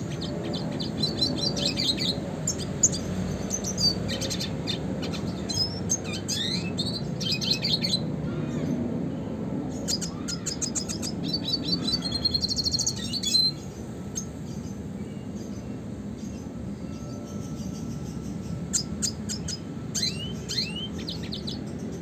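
Red siskin singing in quick twittering phrases and trills. It stops a little past halfway and comes back with a few short chirps near the end.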